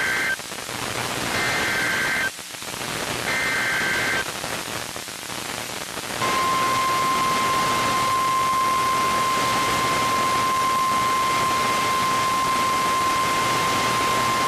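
NOAA Weather Radio Emergency Alert System activation over radio static: three short bursts of SAME digital header data about a second apart, the first already under way, then about six seconds in the steady single-pitch 1050 Hz warning alarm tone, which runs past the end. It signals a severe thunderstorm warning about to be read.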